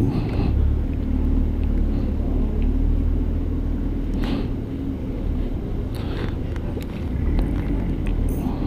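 Low, steady rumble of street traffic with motor vehicles close by, with a few faint brief higher sounds about four and six seconds in.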